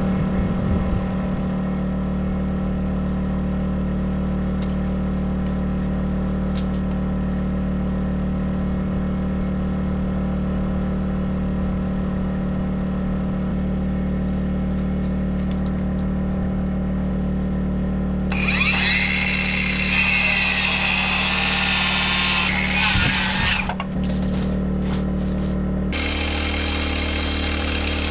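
Circular saw cutting through a wooden board, a loud whining cut starting about two-thirds of the way in and lasting about five seconds, then a second cut near the end. A steady low hum runs underneath throughout.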